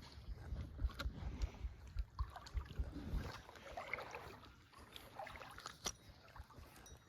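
Creek water sloshing and splashing around legs wading through it, with irregular low thumps in the first half and a few sharp clicks near the end.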